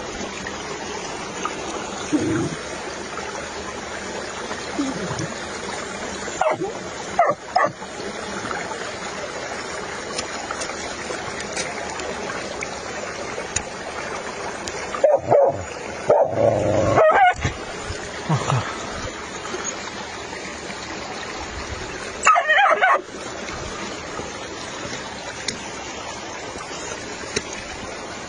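A dog being freed from a steel leg-hold trap yelps and barks in a few short spells, over the steady rush of a mountain stream.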